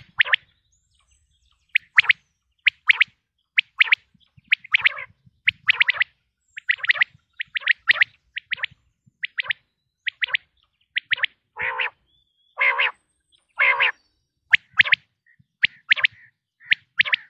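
Common quail calling: short, sharp notes in quick groups of two or three, separated by brief pauses. About twelve seconds in come three longer, lower calls about a second apart.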